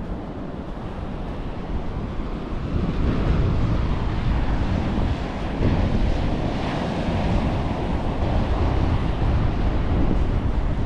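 Wind buffeting the microphone over the steady wash of ocean surf, getting louder about two to three seconds in.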